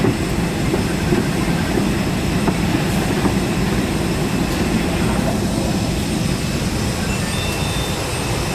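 Steady low cabin noise of an Airbus A320 parked at the gate with its engines not yet started, mostly the hum and rush of the cabin air-conditioning.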